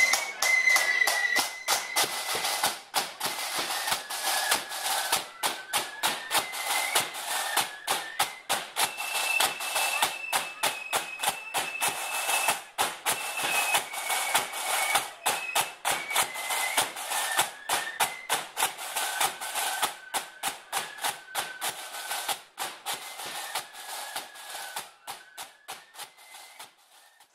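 Marching flute band playing a march tune, with a high flute melody over rapid snare drum rolls and strokes; the music fades out near the end.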